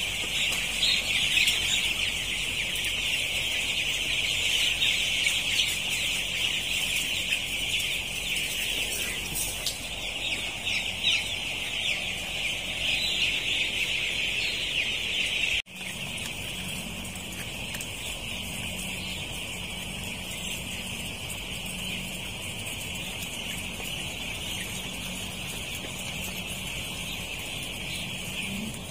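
Dense, continuous high peeping of a large flock of nine-day-old broiler chicks. About halfway through it breaks off for an instant, then carries on a little quieter over a low steady hum.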